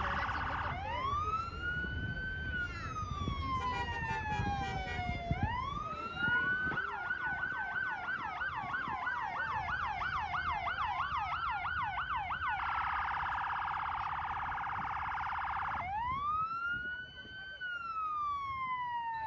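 Electronic emergency-vehicle siren: a slow wail rising and falling, switching about six seconds in to a fast yelp of about three sweeps a second, then a steady blare for a few seconds, then back to the wail.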